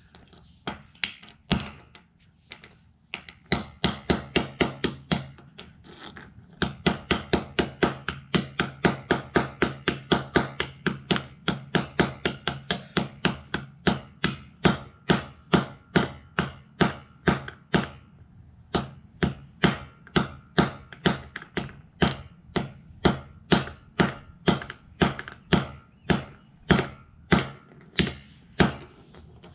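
Claw hammer striking a small plastic Bluetooth speaker on a concrete floor, over and over. A few scattered blows at first, then a steady run of roughly two to three sharp knocks a second from about six seconds in.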